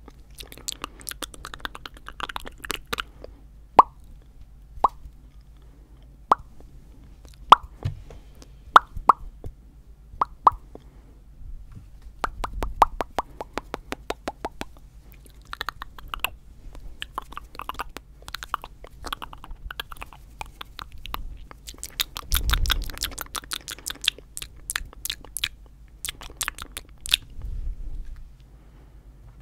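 Fast ASMR mouth sounds right at a microphone: wet tongue clicks and lip pops, some single and some in quick rapid-fire runs. A few breaths hit the microphone as short low rumbles.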